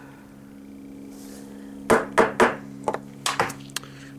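Sharp plastic-and-metal clacks from working a spring-powered airsoft shotgun: three quick loud clacks about two seconds in, then a few lighter clicks.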